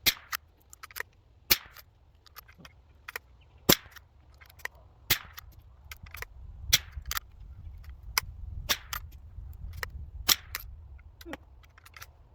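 Savage Rascal single-shot bolt-action .22 LR rifle being fired again and again: a string of sharp cracks about every one to two seconds, with smaller clicks in between.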